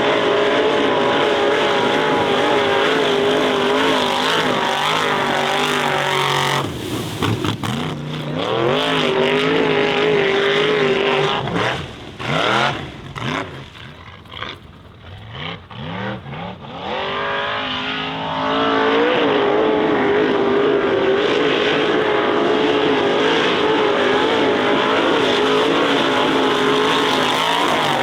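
Formula Offroad hill-climb buggy's engine held at high revs, easing off in the middle with a series of throttle blips and falling and rising pitch, then back up to steady high revs for the last part.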